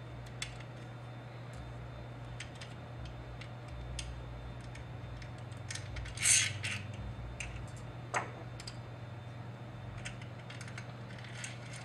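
Small clicks, taps and light rattles of carburetor parts and a gasket being handled and fitted onto a Honda GX35 engine, with a louder scrape about six seconds in and a single knock about two seconds later, over a steady low hum.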